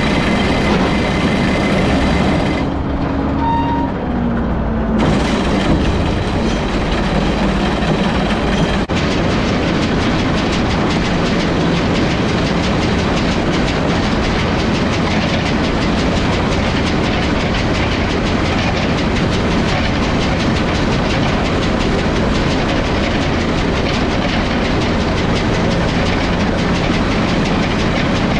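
International 1066 tractor's six-cylinder diesel engine running under load while driving a New Holland 853 round baler, with the baler's steady rhythmic clatter.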